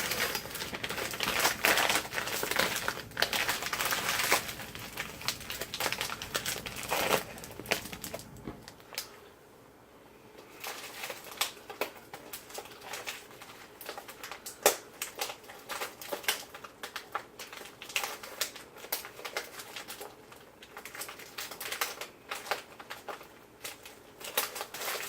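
Plastic bag of frozen onions crinkling and crackling as it is handled: dense rustling for about the first eight seconds, a short lull, then scattered crackles and clicks.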